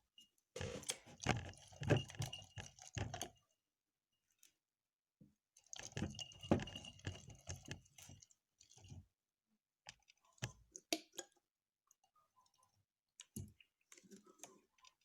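Slime being worked by hand or with a stirrer: wet squelching and sticky clicking in two long spells, then scattered clicks.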